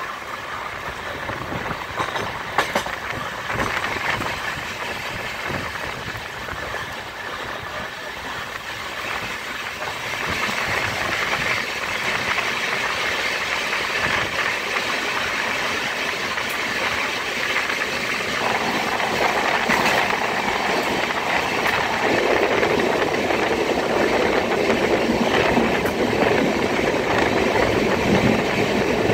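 Passenger train running on the rails: steady wheel and rail noise with scattered clicks over the rail joints. It grows louder in the second half, once the train is inside a tunnel.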